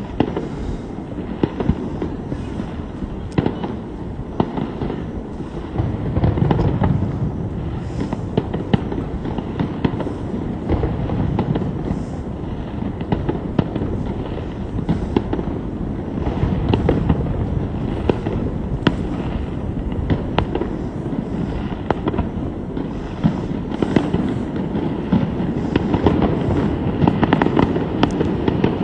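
A fireworks display going off without pause: a dense run of booms and crackling pops, swelling louder near the end.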